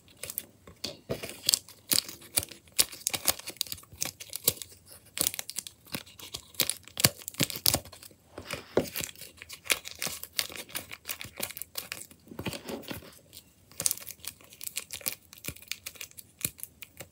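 Paper crinkling and rustling as fingers press and poke the paper bubbles of homemade DIY dimple fidgets, a quick, irregular run of crackles throughout.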